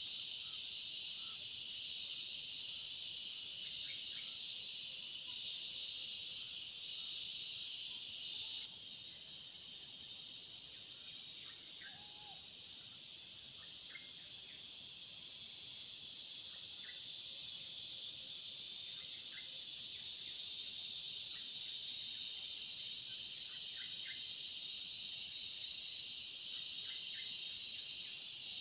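Steady, high-pitched insect chorus, a dense buzz that shifts in strength every few seconds, with a few faint, brief chirps.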